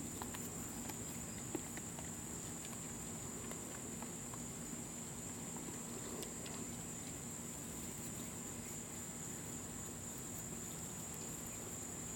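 Insects trilling steadily in one continuous high-pitched drone, with a faint steady low hum underneath and a few light ticks.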